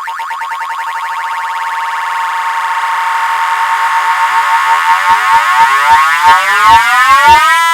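A loud, siren-like warbling tone with many overtones that grows steadily louder, with heavy thumps coming in about five seconds in. Near the end it slides up in pitch into a steady, horn-like held tone.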